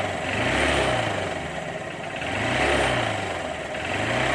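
Honda Shine's 125 cc single-cylinder four-stroke engine running at idle, its pitch rising and falling twice with light throttle blips about two seconds apart, then settling back to a steady idle.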